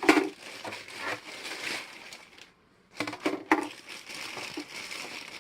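Packaging crinkling and rustling as ceiling fan blades are unwrapped and handled, in irregular bursts with a brief pause about two and a half seconds in.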